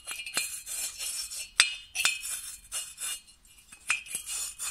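Decompression valve being lapped into its seat in a Polini cylinder head. The valve is turned back and forth by a hand drill and grinds against the seat through fine lapping paste. This gives short gritty scrapes with sharp clinks, about two a second.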